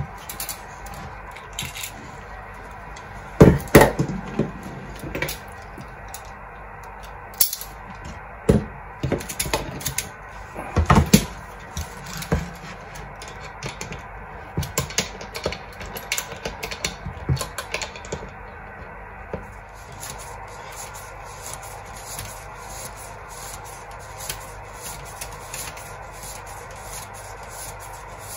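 Clicks, knocks and rattles of hand tools and parts being handled on a wooden workbench while a plastic pipe coil former is worked with pliers. The loudest knocks come about 4 and 11 seconds in; the second half has only faint, light clicks.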